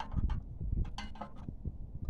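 Parking brake shoe adjuster wheel on a VW Touareg's rear hub being turned with a screwdriver: a few short metallic clicks and scrapes, over a low rumble.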